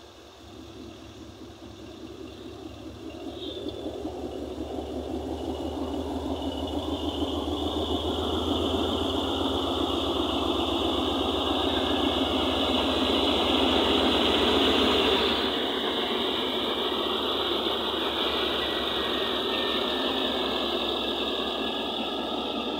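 Diesel locomotive engines working as a Pakistan Railways train pulls away past close by. The pulsing engine rumble builds steadily over the first several seconds, and a high steady whine joins it. The deep rumble eases about two-thirds of the way through as the lead unit moves on.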